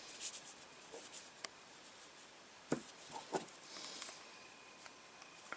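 Faint handling sounds: a few light clicks and taps with soft rustling, as small objects are picked up and moved by hand.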